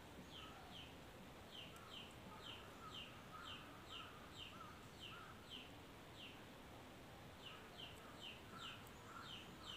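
Faint bird chirping: short, quick falling notes repeated about twice a second, with a brief pause partway through, over a low background hiss.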